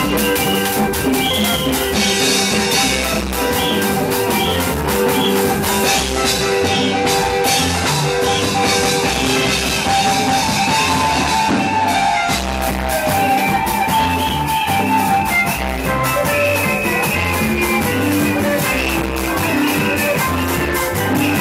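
Loud praise-band music with a steady beat on drum kit and guitar. It stops abruptly at the end.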